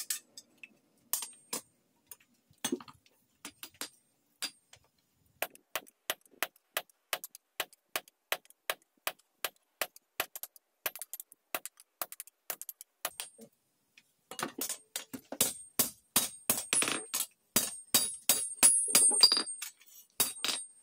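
Hand hammer forging a hot sword blade of old spring steel on an anvil: sharp ringing blows, a few scattered at first, then a steady run of about two or three a second. After a short pause near the end comes a faster, louder run of blows.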